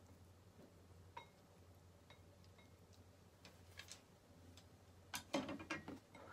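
Faint clicks and light knocks of wooden chopsticks and a ceramic bowl being handled on a kitchen counter: a few scattered ticks, then a quick cluster of louder knocks near the end as the bowl is taken in hand. A low steady hum runs underneath.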